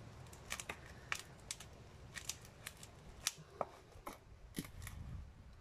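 Scissors clicking and scraping against a plastic water bottle as the blade point is worked into it to punch a hole: faint, irregular small clicks.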